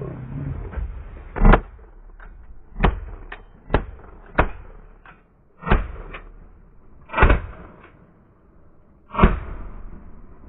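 A volley of shotgun shots, about nine in eight seconds at irregular spacing, some much louder than others.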